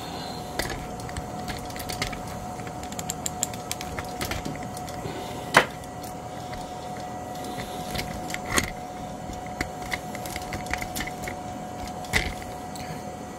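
Scattered small clicks, taps and knocks of hands handling tools, parts and the camera setup, with one sharper knock about five and a half seconds in and others near eight and a half and twelve seconds, over a steady faint hum.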